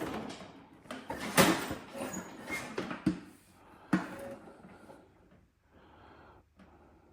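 Scattered knocks and clunks with rustling handling noise, the loudest about a second and a half in and again near four seconds, then dying down. No engine is running.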